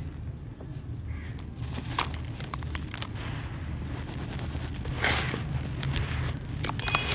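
Dry, gritty dirt and sand pouring from hands into a plastic tub: a grainy hiss with scattered small clicks of grit and pebbles, loudest about five seconds in. A steady low hum runs underneath.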